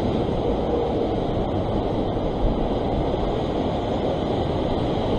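Ocean surf washing over a rock ledge, a steady rushing, with wind on the microphone.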